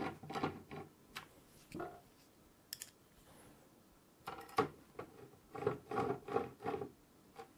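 Small screws being fitted and started into a CPU cooler's metal top mounting plate with fingers and a Phillips screwdriver: faint light metallic clicks and scrapes. They come in two clusters, with a quiet pause in the middle.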